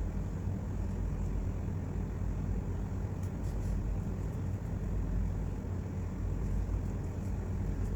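Steady low background rumble with a faint hiss, and a few faint ticks about three seconds in.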